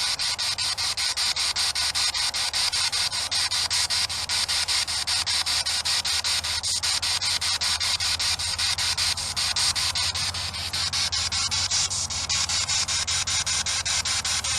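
Spirit box (radio sweep device) hissing with static, chopped rapidly and evenly several times a second as it scans through stations, over a low steady hum.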